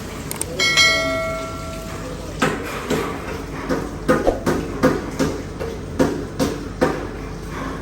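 A metal object is struck once with a clear ringing clang, then knocks about a dozen times at an uneven pace, two or three a second: metal tools banging while grease and waste are cleared from a kitchen drain manhole.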